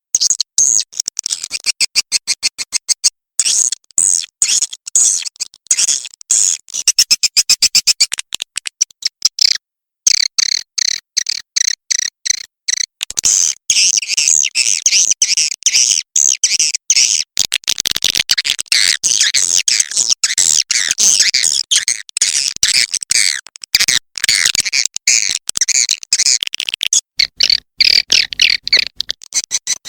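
Swiftlet lure call: rapid, high-pitched chattering chirps and trills of edible-nest swiftlets in quick pulsed runs, broken by a few brief pauses.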